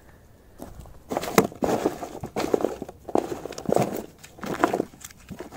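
Rummaging through a cardboard box of firecrackers: tubes and packets clattering and rustling against each other and the cardboard in irregular knocks, starting about a second in.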